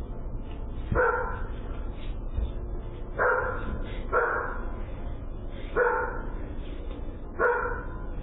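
A dog barking, five barks spaced about one to two seconds apart.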